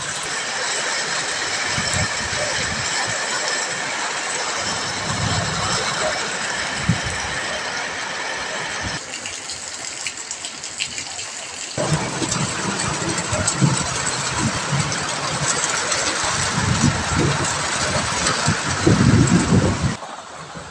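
Typhoon wind and rain, a loud steady rushing with gusts buffeting the microphone in low rumbles. The sound changes abruptly about nine seconds in and again about three seconds later.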